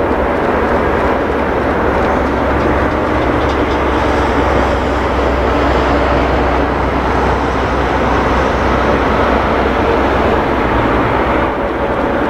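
Boeing 777-200ER's two jet engines running at taxi power as the airliner turns onto the runway: a steady, even noise over a low rumble.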